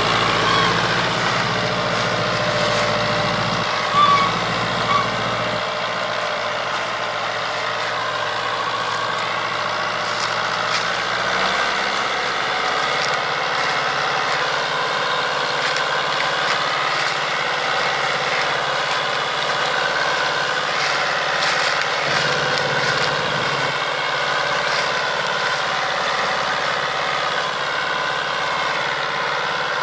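Fiat 640 tractor's diesel engine running steadily under load as it pulls a heavily loaded sugarcane trailer through soft ground, its revs rising and falling.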